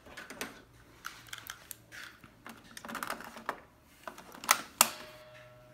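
Plastic ink cartridges being handled and pushed into the cartridge bay of a Brother J875DW inkjet printer: scattered light clicks and rattles, then two sharp clicks close together near the end as a cartridge snaps into place, followed by a faint steady tone.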